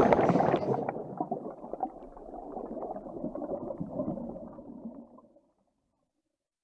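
End of a show's closing music and sound effects: a loud hit that fades into a low, grainy, bubbling rumble, which cuts off to silence after about five seconds.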